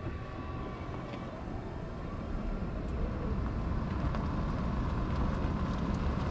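Ford F-150 PowerBoost hybrid pickup reversing slowly on electric power alone, with only a low rumble of tyres rolling on pavement that slowly grows louder. No backup alert beeps and no fake motor whine are heard: the truck's external pedestrian-alert speaker is bypassed.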